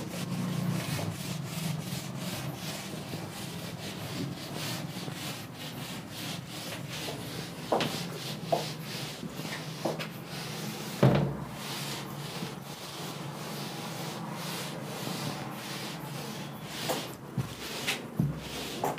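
Whiteboard eraser rubbing marker writing off a whiteboard in quick, repeated back-and-forth strokes. A few sharper knocks stand out, the loudest just past the middle.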